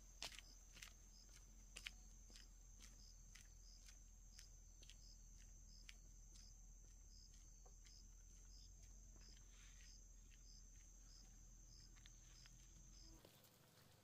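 Faint ambience: a steady high insect trill, with light sharp taps about twice a second. Both cut off abruptly just before the end.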